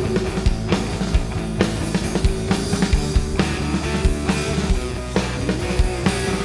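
Live rock band playing: a drum kit beating steadily under electric guitar through Marshall amplifiers, with one long note held over it, wavering slightly.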